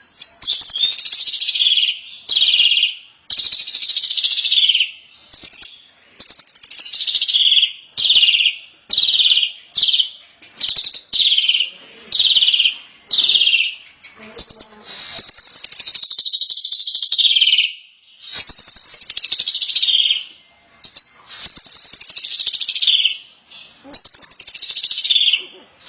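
Javan myna (jalak kebo) singing: a long run of loud, shrill whistled and chattering phrases, each from half a second to about two seconds long, separated by short pauses.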